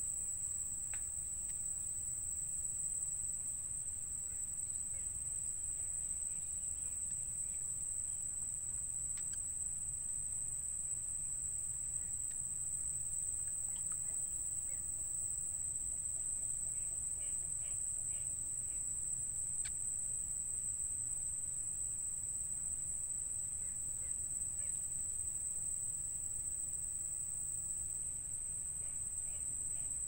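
A steady, high-pitched insect drone, unbroken throughout, with a few faint short chirps here and there.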